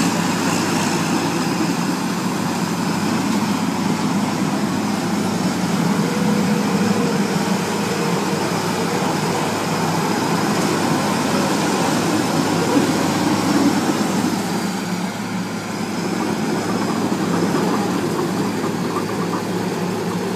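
Engine of a tracked rice-paddy tractor running steadily as it works a flooded field with a front-mounted rotary tiller, dipping slightly in level about three-quarters of the way through.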